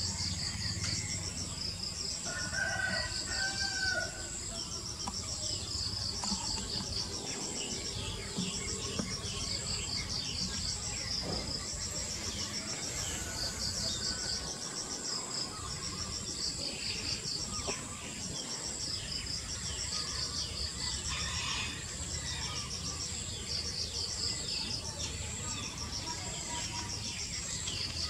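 A chorus of insects chirping steadily in repeated high, pulsed trains. A brief rooster crow sounds about three seconds in.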